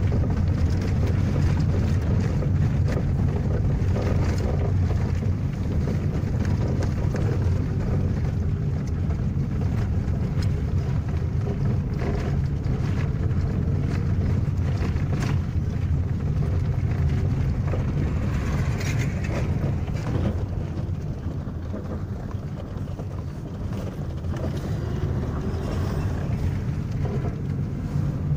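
Steady road noise heard inside a moving car's cabin: a low rumble of engine and tyres on a rough, partly unpaved road under repair, with a few short knocks from bumps. It eases off slightly about three-quarters of the way through.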